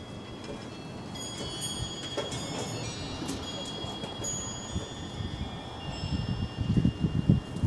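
Wind chimes ringing, with several high tones struck at irregular moments that overlap and fade slowly. Near the end come a few low handling knocks and rustles close to the microphone.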